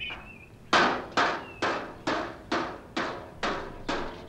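Steady hammer blows, about two a second, starting about a second in, each sharp strike followed by a brief ring-off.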